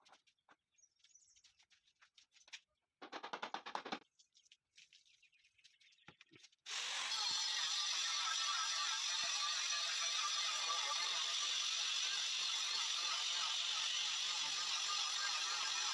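Handheld electric stone cutter starts abruptly about seven seconds in and runs steadily, its blade cutting through a granite slab with a harsh, even grinding noise. Before it, light clicks and a brief scraping sound about three seconds in.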